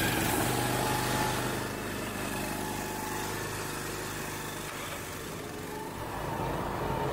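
Small petrol engines of gas pressure washers running steadily.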